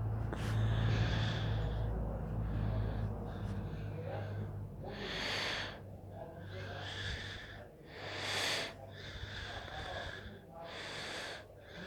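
Consul washing machine spinning a load of double-bed sheets. A steady low motor hum stops about halfway through, and whooshing swells follow about every three seconds.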